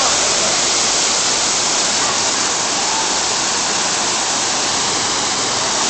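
Water pouring down an artificial waterfall, a steady, even rush that does not change.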